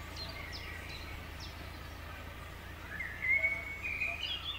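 Small birds singing, with short chirps early on and a longer rising call about three seconds in. A steady low hum runs underneath.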